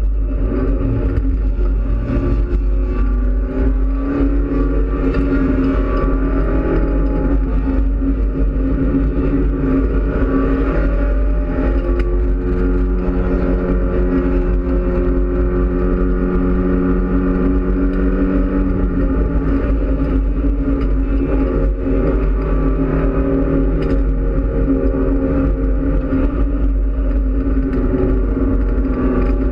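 Mitsubishi Lancer Evolution X race car's turbocharged 2.0-litre four-cylinder engine heard from inside the cabin while lapping at speed, its revs rising and falling as the driver works through the gears. A steady low rumble of road and wind noise runs underneath.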